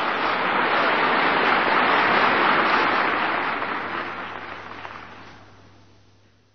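Audience applauding after a line of a speech, swelling slightly and then fading out over the last two seconds, with a steady low hum from the recording underneath.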